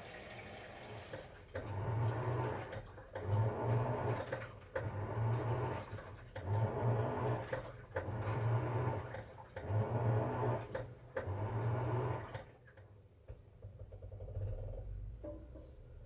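Sharp ES-TX8E top-loading washer-dryer: a short stretch of water filling the tub, then the pulsator agitating the wash in about seven regular swishing surges, each about a second long with short pauses between, as the motor reverses. Near the end it goes quieter and a low steady hum starts as the tub begins to spin.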